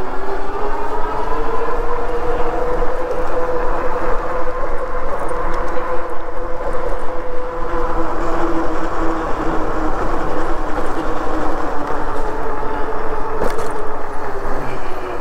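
Himiway Zebra fat-tire e-bike riding on the road: a steady droning whine that drifts slowly up and down in pitch with speed, over a rush of wind and road noise.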